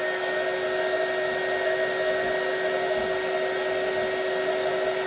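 Hot air gun running steadily, blowing hot air: a steady whine from its fan motor over the rush of air.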